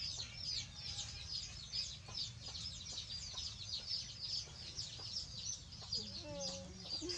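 Birds chirping in a rapid, continuous chatter of short, high, falling calls, several a second, over a steady low background hum.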